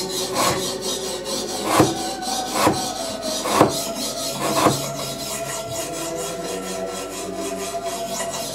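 Knife with an Elmax steel blade slicing repeatedly through rope, a rasping of cut fibres. About five heavier strokes come roughly a second apart, then a steadier rasping. These are cuts in an edge-retention test.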